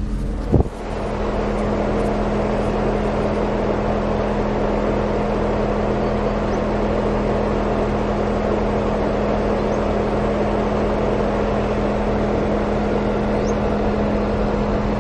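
Car driving along a street: a steady low engine hum with road and wind noise. A short thump about half a second in.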